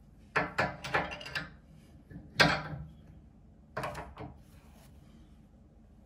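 Metal hand tools, an open-ended spanner and grips, clinking and knocking against a radiator valve's compression nut while it is tightened. There is a quick cluster of knocks in the first second and a half, a single louder knock about two and a half seconds in, and two more near four seconds.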